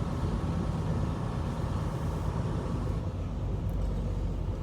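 Steady low rumble of a semi-truck's engine, heard from inside the cab.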